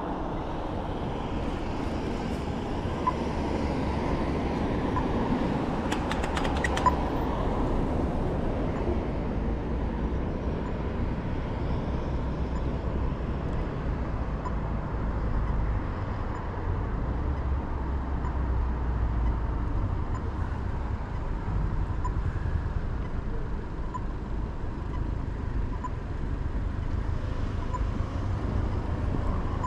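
Steady road traffic noise at an intersection: a low rumble of car engines and tyres, with faint short beeps every couple of seconds.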